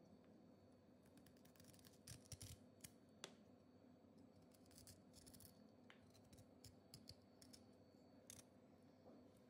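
Faint cuts and light clicks of a kitchen knife slicing through a raw ivy gourd held in the fingers, with a cluster of cuts about two seconds in and a sharp click about a second later.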